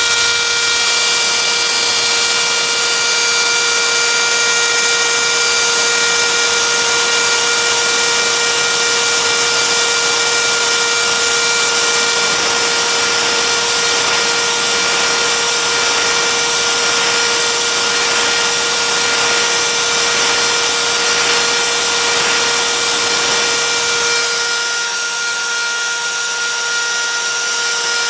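CNC router spindle running with a steady high whine while its thin tapered bit carves into wood, with the rough hiss of the cut over it. Near the end the cutting noise thins and gets a little quieter.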